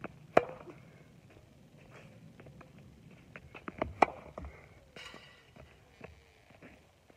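Tennis racket hitting forehands: two sharp ball strikes, one about half a second in and the louder one about four seconds in, with quieter taps of ball bounces and footsteps on the hard court between them.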